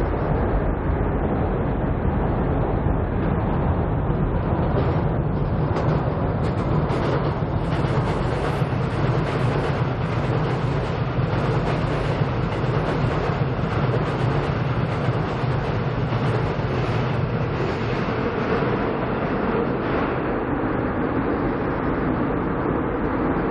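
Seoul Subway Line 7 train crossing Cheongdam Bridge, a steady rail rumble that builds from about five seconds in and eases off near the end.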